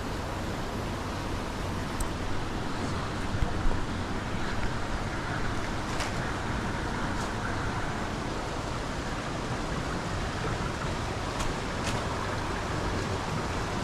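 Waterfalls rushing in a steady, even roar of falling water, with a few faint sharp ticks over it.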